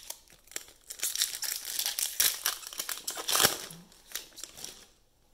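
Foil wrapper of a 2020 Donruss football hobby pack crinkling and tearing as it is pulled open by hand: a few seconds of dense crackling, loudest near the middle-to-late part, then it stops.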